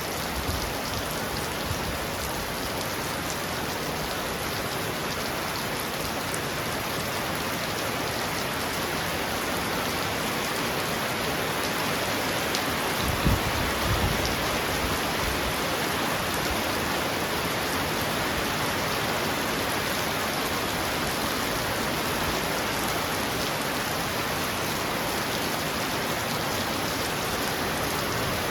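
Heavy rain pounding steadily on a roof, an even downpour hiss. Halfway through there is a brief low thump.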